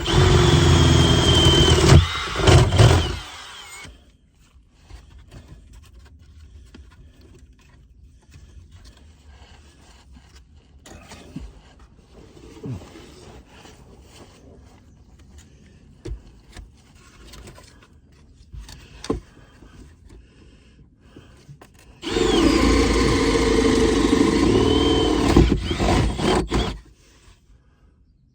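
Power tool motor running under load as it cuts into wood, in two spells: about three seconds at the start and about five seconds later on, its pitch wavering as it bites. Faint scraping and handling sounds in between.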